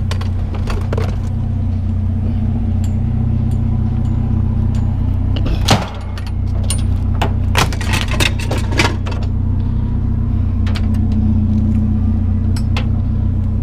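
Vehicle engine running with a steady low hum. A cluster of sharp clicks and knocks comes in about six to nine seconds in, with a few more near the end.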